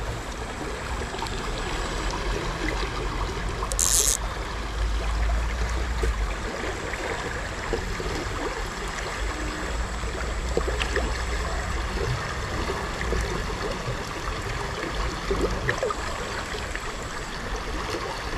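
A shallow river running over rocks: a steady rushing hiss of flowing water, with a brief higher hiss about four seconds in.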